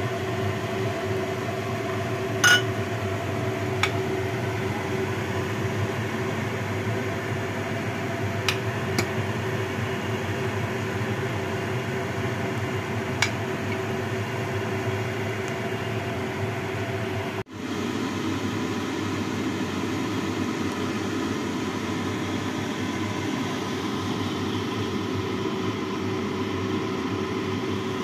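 Steady kitchen fan hum over a pot of soup boiling on a gas stove, with a few light clinks in the first half and a momentary dropout about 17 seconds in.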